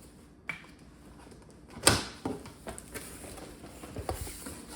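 Cardboard packaging being opened and handled: a sharp knock a little under two seconds in, then light rustling and clicks.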